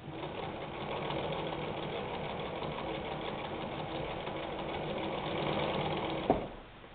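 Vintage Singer 99K sewing machine running steadily at speed, then stopping with a sharp click a little over six seconds in.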